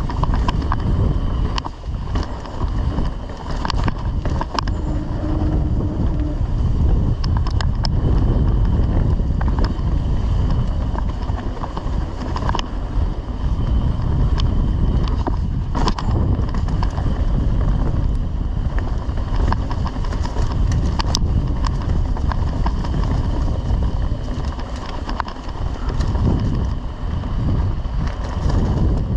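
Wind buffeting the action camera's microphone as a mountain bike rides fast down a dirt trail, with tyre rumble and frequent sharp clicks and rattles from the bike over bumps.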